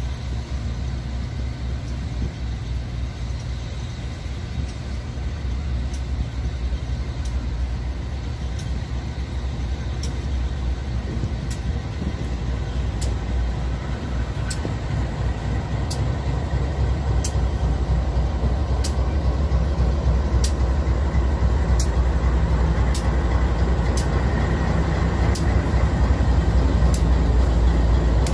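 BNSF GE C44-9W diesel-electric locomotives' V16 diesel engines rumbling at low speed. The sound grows steadily louder as the lead units roll slowly up and pass close by. A sharp high tick repeats about every second and a half.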